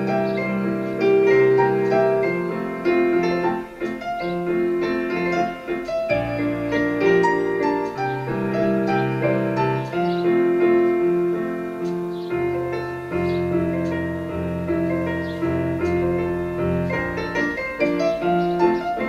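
Background piano music: held chords and melody notes over a low bass line.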